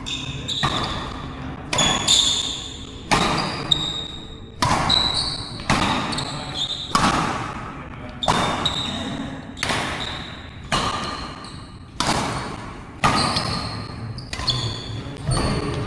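A fast badminton rally: rackets striking the shuttlecock again and again, about once a second, each hit echoing in a large hall, with shoes squeaking on the court between hits.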